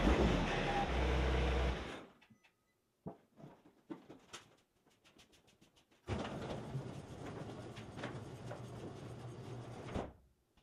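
John Deere compact tractor's diesel engine running steadily, cutting off abruptly about two seconds in. Then faint scattered clicks and knocks, and from about six seconds a steady rushing noise that stops abruptly near the end.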